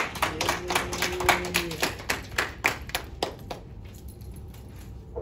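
A small group of people clapping, quick and dense at first, then thinning out and dying away about three and a half seconds in.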